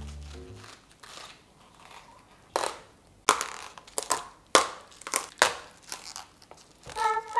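Savoy cabbage leaves snapping as they are pulled off the head by hand: a run of sharp, crisp cracks starting about two and a half seconds in.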